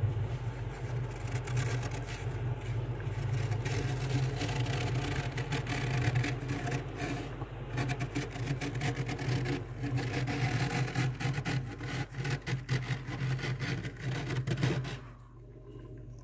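Bare fingers scraping thick frost off the inside of a freezer, with rapid crunchy, crackling scrapes over a steady low hum; both stop about a second before the end.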